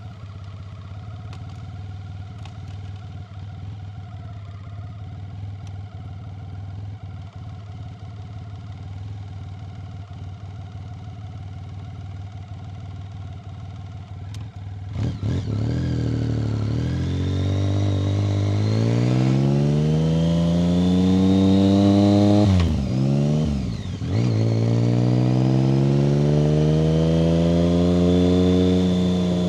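1990 BMW K75's three-cylinder engine running steadily at low revs, then about halfway through pulling away hard and getting louder, its pitch rising, with a brief drop in revs at a gear change before climbing again and settling.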